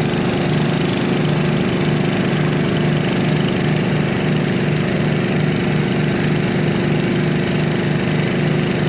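An engine running steadily at a constant speed, loud and even throughout.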